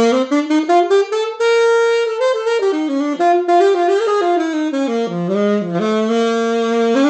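Saxophone playing a flowing jazz phrase, a line of notes moving up and down and ending on a long held note. This is the plain horn with no sound mirror in front of it, heard from the player's position.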